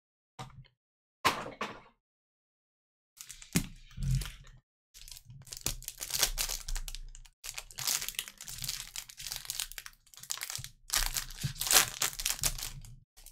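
Plastic wrapper on a pack of trading cards crinkling as it is handled and peeled open, in a dense crackly run lasting about ten seconds. Before it come two short scrapes of the cardboard box being opened.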